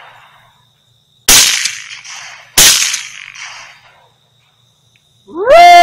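Two rifle shots about a second and a third apart, the first about a second in, each a sharp crack that rolls off in echo. Near the end comes a loud, drawn-out animal cry that rises, holds steady and falls.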